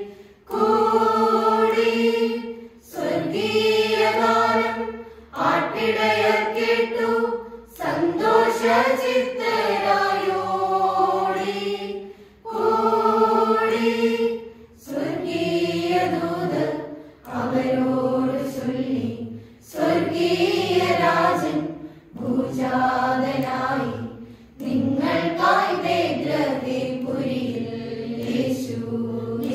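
Church choir of girls and women with a few men singing a Christmas carol, unaccompanied. It sings in short phrases of about two seconds, each followed by a brief break for breath.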